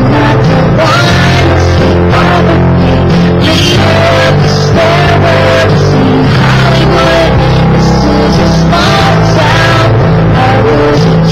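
A rock song with singing and guitar playing loudly and steadily.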